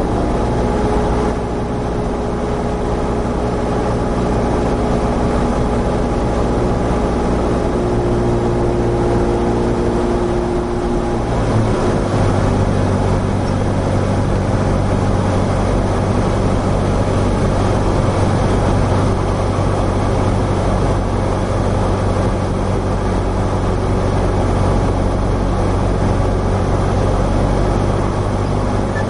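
Light aircraft engine droning steadily in the cockpit during a landing approach. Its note drops a step about twelve seconds in, then holds steady.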